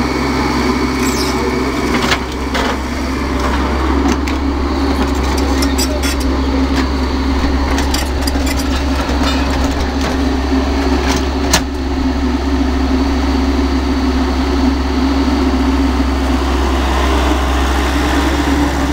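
L&T-Komatsu crawler excavator's diesel engine running steadily as the machine swings and works, with a couple of sharp knocks, the loudest about eleven and a half seconds in.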